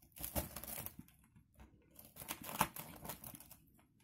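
Knife crunching through the hard chocolate puffed-rice base of a no-bake cake in two rough bursts, each about a second long.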